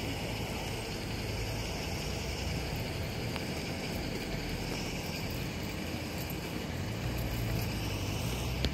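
Steady outdoor street noise with a low, even engine-like hum. A short click comes near the end.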